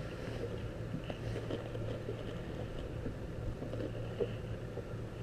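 Faint rustling and small ticks of gloved hands handling fishing tackle, over a steady low hum.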